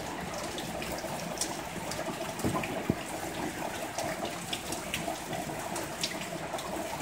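Heavy rain falling steadily, with scattered drops ticking sharply close to the microphone.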